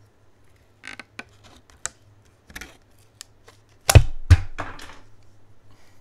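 Leatherman Raptor shears snipping through a thin plastic-and-silicone phone case: a few short, sharp cuts, a very easy cut. About four seconds in come two loud knocks, half a second apart, followed by rustling as the pieces are handled.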